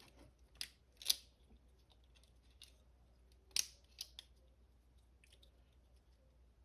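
Scattered sharp plastic clicks of a Transformers Air Raid action figure's joints and parts being moved by hand during transformation, about half a dozen clicks with the loudest about three and a half seconds in.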